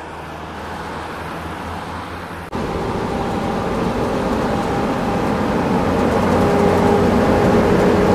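A vehicle going by close at hand: a steady rush of running noise with a faint whine in it. It jumps louder about two and a half seconds in, then keeps building towards the end.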